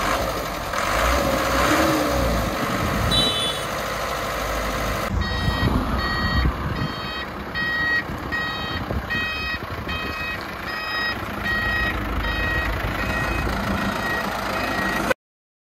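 Small dump truck's engine running, and from about five seconds in its reversing alarm beeping steadily, a little more than one beep a second, over the engine.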